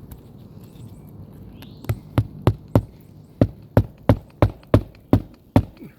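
A hammer driving roofing nails into asphalt shingles: about a dozen sharp strikes a few tenths of a second apart, starting about two seconds in, with a run of four, a short pause, then eight more.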